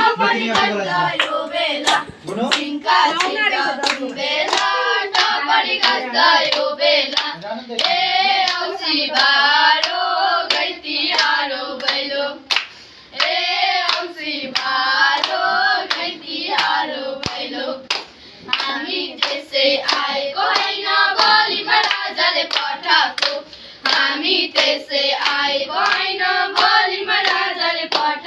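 A group of girls singing together in unison and clapping along in rhythm, a Bhailo song sung at the door during Tihar. The singing breaks off briefly about halfway through.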